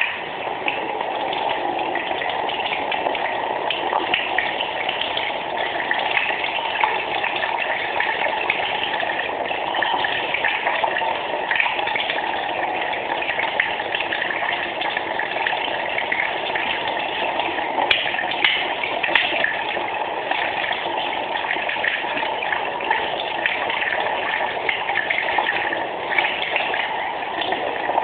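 Water running steadily from a tap and splashing onto an opened Swiss Army knife held under the stream, with a couple of faint clicks about two-thirds of the way through.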